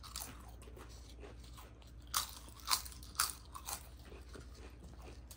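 Crisp papad being bitten and chewed close to the microphone: small crackles at first, then a handful of sharp crunches about half a second apart from about two seconds in.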